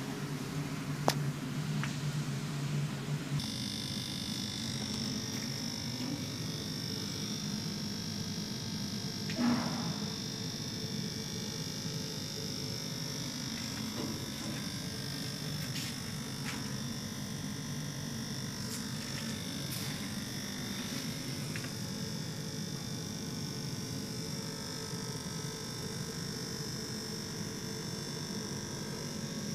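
Steady hum and bubbling of aquarium aeration and filters in a fish room. A sharp click comes about a second in and a short bump near ten seconds in.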